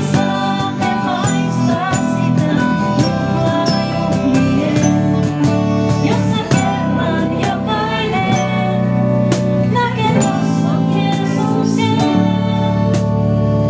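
A live gospel song: a woman singing lead into a microphone over the band, with a cajon tapping out a steady beat.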